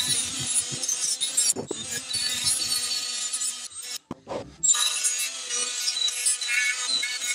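Die grinder running a Scotch-Brite wheel against a cast gear-case part, scuffing its machined mating surfaces clean: a steady high-pitched abrasive hiss with the motor's whine. It stops for a moment about four seconds in, with a low knock, then runs on.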